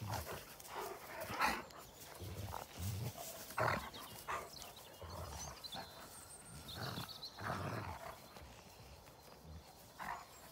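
Two large dogs play-fighting, with low growling and grunting in irregular bursts and a couple of sharper, louder sounds early on in the tussle.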